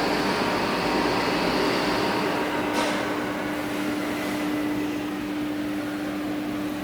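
30 kW diesel generator set with a turbocharged Yuchai YC4D60-D21 engine, running steadily. A steady droning tone joins the engine noise about a second in.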